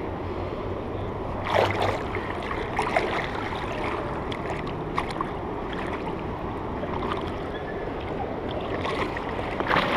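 Shallow river water flowing and sloshing around a person wading, with a louder splash from a step about one and a half seconds in and a few lighter splashes after.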